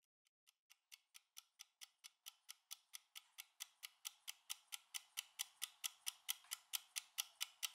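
A clockwork kitchen timer ticking rapidly and evenly, about four or five ticks a second, through the last seconds of a countdown. The ticking fades in about half a second in and grows steadily louder.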